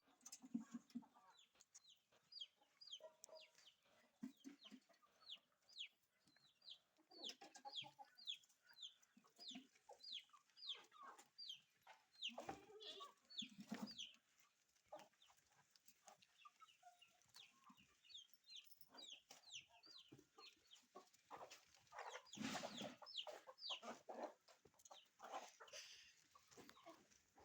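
Chickens clucking faintly, with short high peeping calls repeated about twice a second through much of it.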